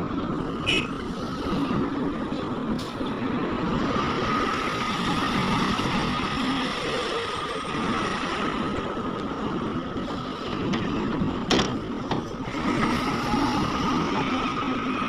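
Heavy earthmoving machinery at work: diesel engines running steadily under load, with a few sharp knocks, about a second in, near three seconds and again past eleven seconds.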